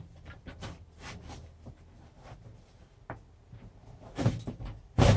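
Scattered light clicks and rubbing as a rag is worked in behind a Chevrolet C10 pickup's door handle, then a sharp clack near the end as the handle comes free.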